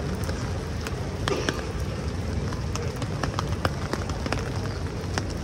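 Footsteps on a city pavement over a steady low hum of street traffic, with many short irregular clicks and taps scattered through.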